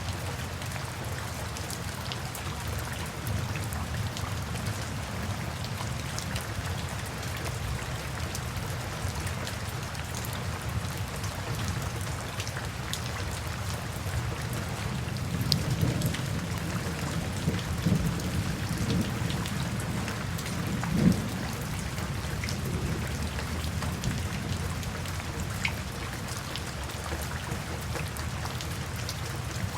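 Steady rain falling, an even hiss with scattered drop ticks. About halfway through, a low rumble of thunder builds for several seconds, loudest about two-thirds of the way in, then fades back under the rain.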